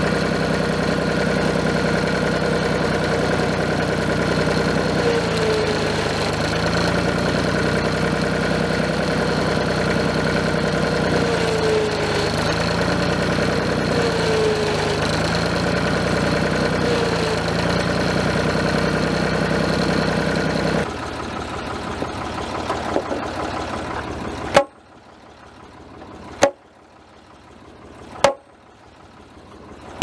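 Farm tractor engine running steadily while its front loader lifts a heavy timber beam, the engine note sagging briefly four times as the loader hydraulics take the load. The engine sound cuts off abruptly about two-thirds of the way through, and sharp knocks follow about every two seconds near the end.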